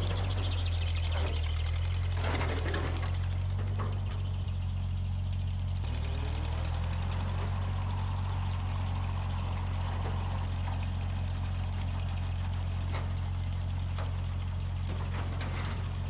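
Small old farm tractor's engine running at a steady speed, with a few scattered knocks and clunks.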